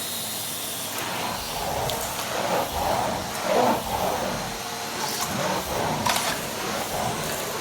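Numatic Henry 160 vacuum cleaner running at full suction with the wand's air vent closed, its floor head pushed back and forth over carpet, the sound rising and falling with the strokes and a few light clicks.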